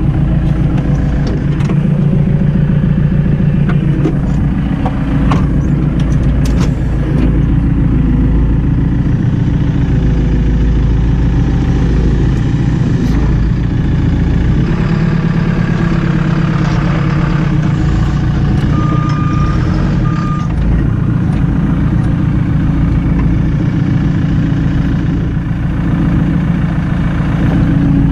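Diesel tractor engine running steadily close by, lifting one side of the roller on a sling. Two short high beeps sound about two-thirds of the way through, and a few sharp knocks come early on.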